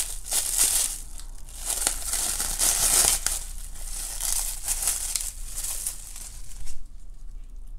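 Plastic bubble wrap crinkling and rustling as hands pull it off a small boxed ink bottle, in irregular crackly bursts that stop near the end.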